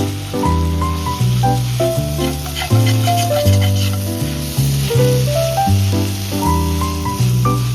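Background music: a bass line under a melody of short, evenly stepping notes, over a steady high hiss.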